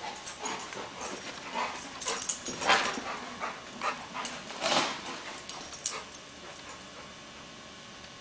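Yellow Labrador retriever giving a string of short whines while mouthing a balloon. The whines are densest and loudest two to three seconds in and trail off after about six seconds.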